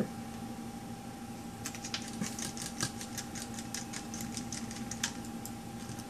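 Small Phillips screwdriver turning a tiny screw into a laptop hard drive caddy's connector bracket: a run of faint, irregular light clicks starting about two seconds in, over a steady faint hum.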